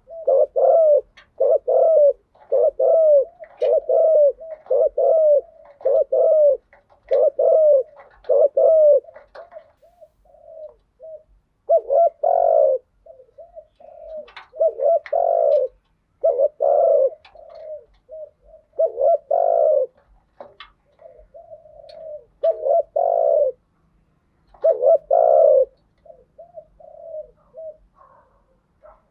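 Spotted doves cooing. Short coos come in quick succession, about one a second, for the first several seconds. After that, louder coo phrases come every two to three seconds with softer short coos between them.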